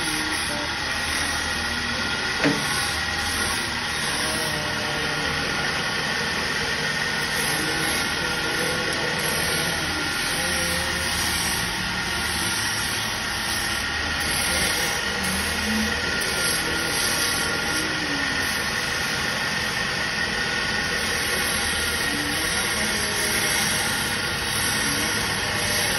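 Wood lathe running steadily while a hand-held steel chisel cuts into a spinning wooden spindle, giving a continuous hiss of shavings coming off the wood. A single sharp click about two and a half seconds in.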